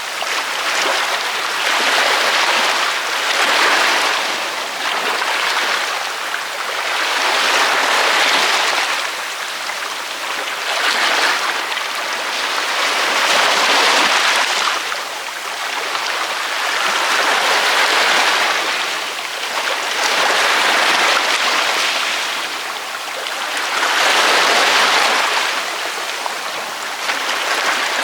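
Ocean waves breaking on a beach: a continuous wash of surf that swells and ebbs every few seconds, with no low rumble.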